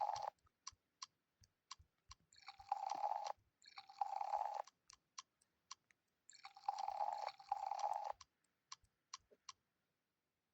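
Custom key-press sound effects from a phone keyboard app as keys are tapped: about five bursts of sound effect, each under a second, with quick short clicks in between, stopping about nine and a half seconds in.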